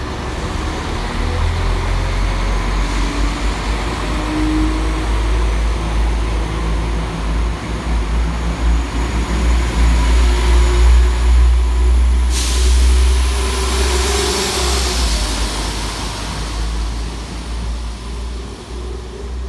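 Class 172 Turbostar diesel multiple unit pulling away, its underfloor diesel engines working hard in a deep rumble that builds, then fades as the train leaves. A loud hiss cuts in about two-thirds of the way through and lasts a few seconds.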